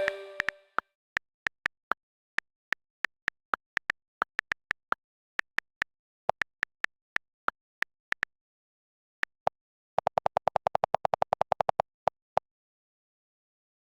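A series of short electronic blips at uneven spacing, then a quick run of about a dozen a second for two seconds before they stop.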